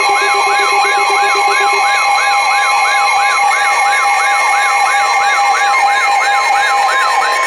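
Emergency weather alert attention tones sounding together: steady high tones under a siren-like alarm that sweeps up and down about three times a second, announcing an incoming warning. A lower pulsing tone cuts off about two seconds in.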